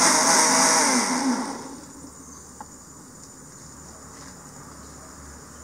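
Electric mixer grinder blending dragon fruit with milk, its motor running loudly and then switched off, winding down with a falling pitch about a second and a half in. A faint click follows.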